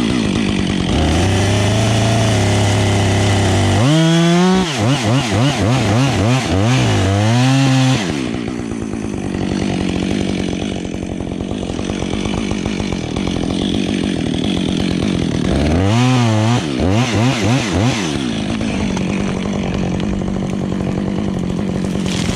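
Husqvarna 555 two-stroke chainsaw running through felling cuts in a dead conifer: long stretches of steady high-revving running, broken twice by quick bursts of the throttle revving up and down.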